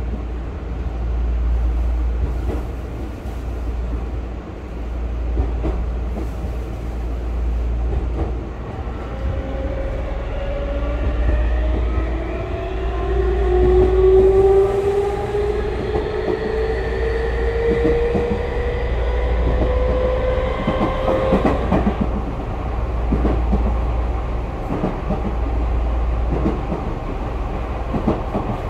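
Interior running sound of a Tokyu 5000 series electric train: a steady low rumble from the wheels and bogies. From about a third of the way in, the traction motors whine, rising steadily in pitch as the train picks up speed. The whine stops suddenly about three quarters of the way through, after which the wheels clack over the rail joints.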